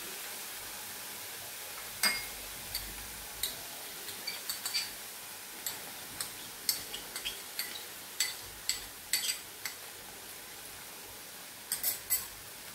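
A spoon clinking and tapping against small bowls and the rim of an aluminium kadhai as tomato sauce is spooned into the vegetables: an irregular series of light, sharp clinks, bunched together near the end, over a faint steady hiss.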